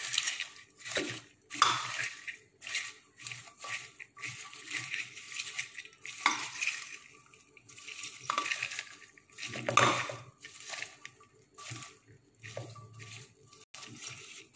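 Silicone spatula stirring popcorn coated in peanut butter sauce inside a metal pressure cooker: irregular rustling, scraping strokes, some of them sharper where the spatula hits the pot.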